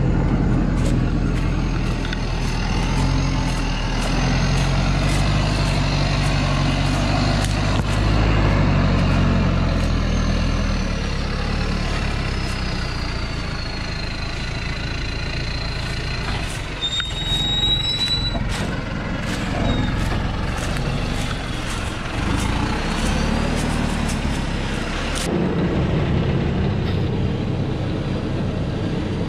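Diesel engine of a Thaco Forland truck loaded with logs, running hard as it climbs a steep dirt track. A few thin, high squeals come and go about halfway through.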